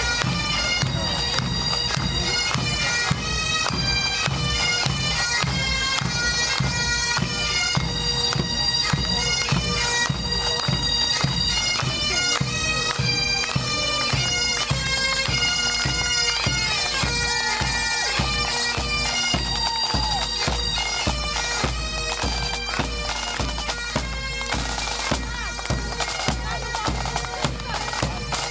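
Marching pipe band playing: Highland bagpipes with a steady drone under the chanter melody, and drums beating time.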